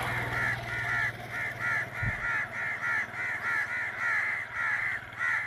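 Birds calling over and over, several short calls a second, with a brief low thump about two seconds in.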